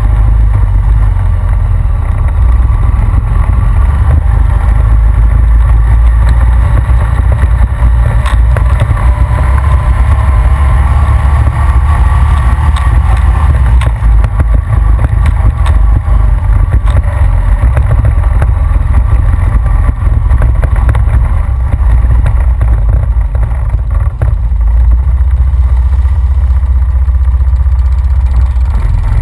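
Honda Rancher ATV engine running steadily under way, buried in heavy low wind rumble on the front-mounted camera's microphone, with a few short knocks.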